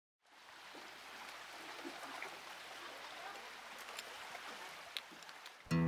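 A steady rushing noise, like flowing water, fades in at the start, with a few faint clicks. Just before the end, an acoustic guitar begins strumming.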